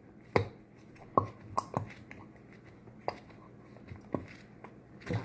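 About half a dozen light clicks and knocks spaced irregularly, the sound of slime-making containers and utensils being handled and set down.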